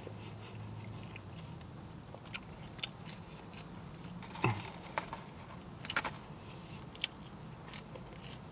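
A person eating French fries, chewing, with several short clicks and taps scattered through, the loudest a little past halfway, over a low steady hum.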